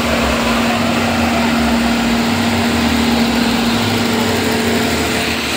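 Diesel generator set running steadily: a low throbbing engine rumble with a steady hum over it.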